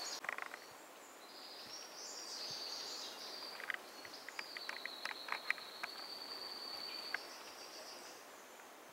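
An insect trills steadily at a high pitch in the rainforest, with a few light clicks in the middle.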